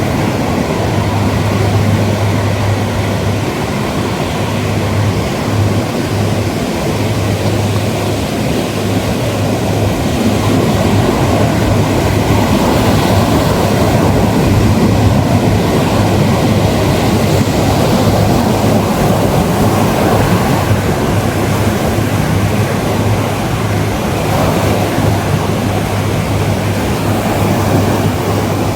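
Ocean surf washing onto a beach: a continuous rushing noise that slowly swells and eases. A low steady hum sits underneath and drops out now and then.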